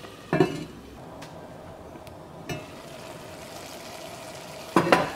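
Enamelled cast-iron lid clanking down onto its pot about a third of a second in, a lighter knock midway, and a quick cluster of knocks against the pot near the end, over a steady faint hum.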